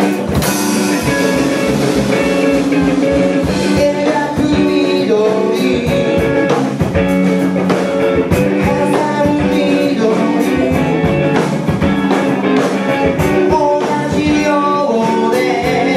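A live rock band playing, with a drum kit beating a steady rhythm under guitar and a singing voice.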